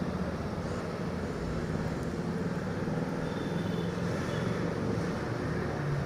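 A steady low drone like an engine running, unchanging throughout.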